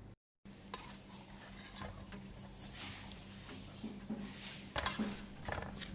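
Kitchen handling sounds as a masala spice mix is worked onto fish in a dish: scattered soft taps, clicks and rubbing, with one louder knock about five seconds in.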